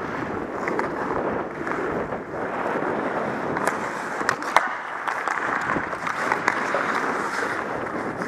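Ice hockey skate blades scraping and gliding on rink ice, with a few sharp stick clacks near the middle.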